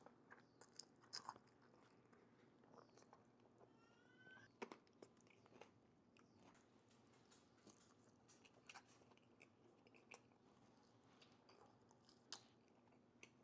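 Faint close-up eating sounds: scattered small mouth clicks and smacks of chewing a mouthful of chili-topped pastrami fries. There is a brief rising squeak about four seconds in.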